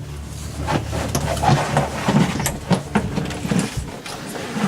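Irregular metal clicks and rattles as a pick tool is worked in an interior doorknob lock and the knob is jiggled.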